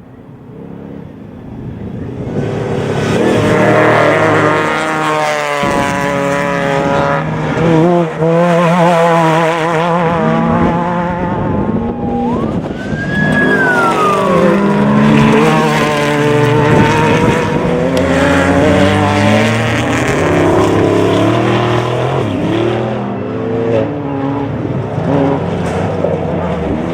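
Off-road race vehicle engine revving hard, its pitch rising and falling with the throttle. A quick warble in the pitch comes about eight seconds in, and a whine rises and falls around twelve seconds.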